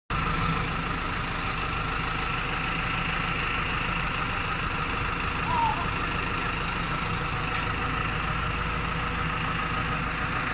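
Forklift engine running steadily while it holds a drum chipper on its forks, with one brief squeak about five and a half seconds in.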